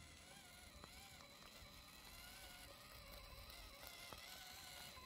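Faint whine of the FMS FCX24 1/24-scale RC crawler's electric motor and gearbox, creeping slowly in first gear, rising and falling in pitch as the throttle is eased on and off; a couple of faint clicks.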